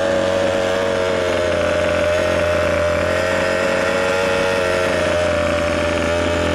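Two-stroke petrol engine of a large-scale RC car running steadily at a fairly constant high speed, its pitch wavering only slightly.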